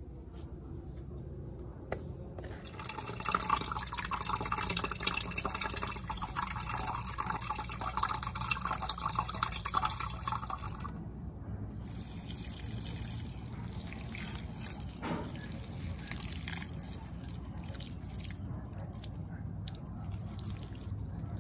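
Water running from a tap into a plastic watering can, starting about two seconds in and running steadily for several seconds as the can fills. After the tap stops, a quieter spatter of water from the can's rose spout onto a potted plant's leaves and soil.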